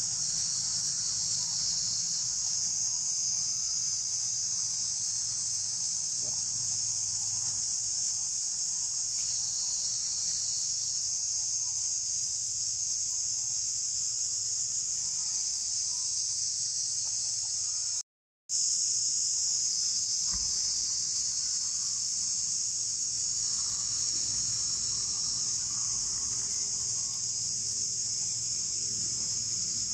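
A steady, high-pitched chorus of forest insects that drops out for a moment about eighteen seconds in.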